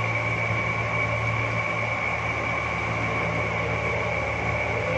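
A steady low electrical hum with a thin, high, constant whine above it: the drone of a running appliance in a small room.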